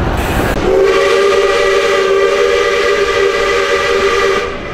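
Steam locomotive 621's whistle blowing one long blast of about four seconds, a chord of several steady tones, with a brief hiss just before it sounds.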